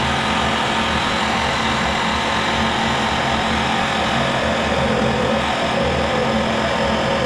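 Handheld butane gas torch burning with a steady flame hiss while heating copper pipe for brazing.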